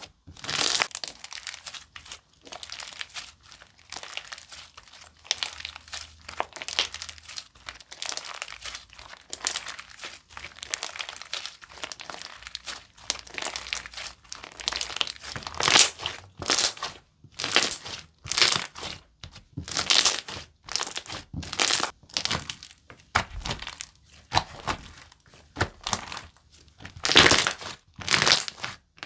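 Slime being squeezed and pressed by hand, making repeated crackling, crinkly squishes. The squishes come close together and softer at first, then from about halfway they are louder and more separate, about one or two a second.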